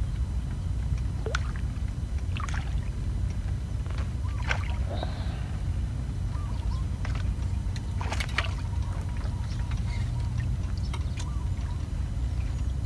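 A hooked fish splashing at the pond surface as it is played on a pole rod and scooped into a landing net: a few short sharp splashes and knocks, the loudest about four and a half and eight seconds in, over a steady low rumble.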